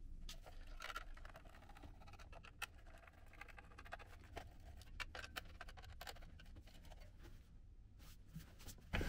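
Faint, scattered small clicks and scrapes of a handheld vacuum's plastic casing being handled while its screws are undone with a screwdriver.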